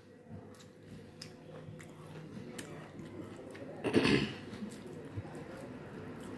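A person chewing a mouthful of rice and curry, with small wet mouth clicks. About four seconds in comes a louder sound lasting about half a second, as the fingers mash and mix rice and curry on the plate.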